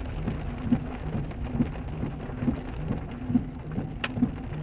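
Heavy monsoon rain with hail drumming on a car's roof and windows, heard from inside the car. A soft low thump recurs a little faster than once a second, and one sharp tap stands out about four seconds in.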